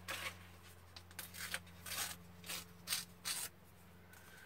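Paper being handled and torn by hand: a string of short, crisp rips and rustles that stops about three and a half seconds in.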